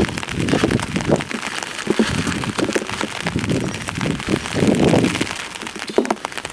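Heavy rain falling, with many sharp drop hits on nearby surfaces and a few louder low swells of noise.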